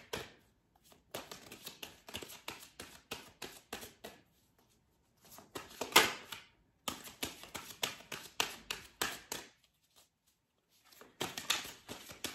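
A deck of tarot cards being shuffled overhand in the hands: quick runs of card-edge flicks and slaps, in three bursts with short pauses between. The loudest slap falls about six seconds in.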